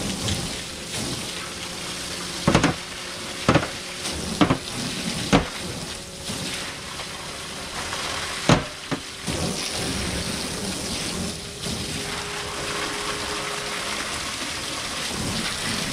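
Water spraying from a garden hose onto the floor of a metal roof box gutter, washing it out: a steady hissing spatter. About five sharp knocks stand out over it in the first nine seconds, the loudest near the end of them.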